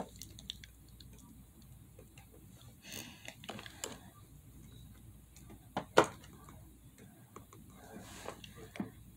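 Scattered small clicks and taps, with one sharper click about six seconds in.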